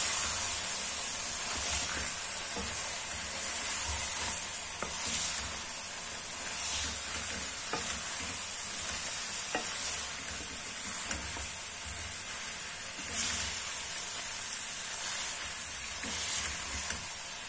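Fried potatoes and chicken with boiled spinach sizzling in a kadhai as they are stirred together, over a steady hiss. A spoon scrapes the pan every second or two.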